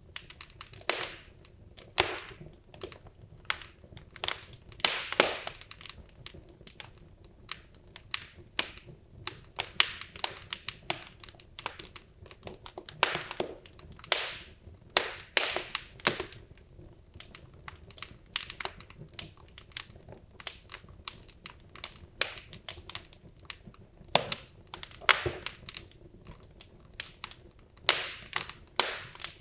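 Wood logs burning in a fireplace, crackling with irregular sharp pops and snaps, some coming in quick clusters, over a faint low hiss of the fire.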